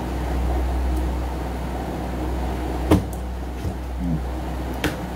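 Steady low hum of room background noise, with a few sharp clicks about a second apart in the second half as a hand handles the recording phone, and a short low murmur between them.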